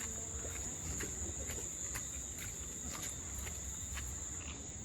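Insects buzzing in one steady high-pitched drone, with faint ticks about twice a second and a low rumble underneath.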